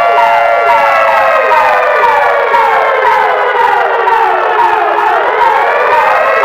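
Electronic emergency-alert alarm sounding loudly: a rapid siren of falling sweeps, about two a second, over a chord of held tones that slowly sink in pitch, dip and rise again about five seconds in.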